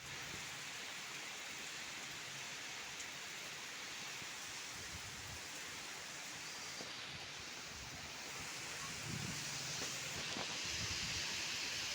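Steady rain falling in strong wind, an even hiss that grows a little louder about eight seconds in. Low gusts of wind rumble on the microphone near the end.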